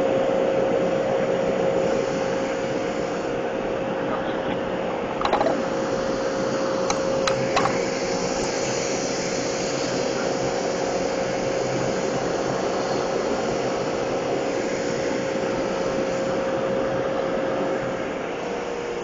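CNC machine running: a steady motor hum with one constant tone over a broad hiss, with a few short clicks about a third of the way in.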